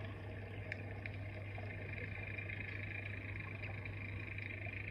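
A steady low hum under an even background hiss, with a faint high chirring that grows slightly stronger near the end.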